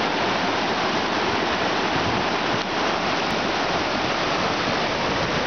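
Fast, silt-laden glacial meltwater river churning through rapids: loud, steady rushing water.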